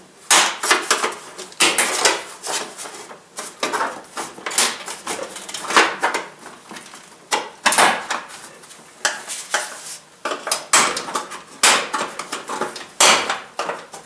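Door trim panel clips on a 1990 Nissan Hardbody door popping loose as the panel is pulled away from the door: a string of irregular sharp snaps and knocks.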